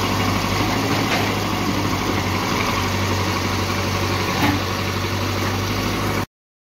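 Caterpillar 424B backhoe loader's diesel engine running steadily while the backhoe arm works the fill, with a short knock about a second in and a louder one about four and a half seconds in. The sound cuts off suddenly near the end.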